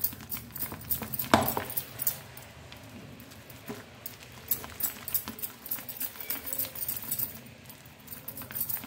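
Thick vada batter of ground urad dal with chopped onion and herbs being beaten by hand in a bowl: a continuous run of short, wet slapping strokes. The beating works air into the batter so the vadas puff up and fry crisp.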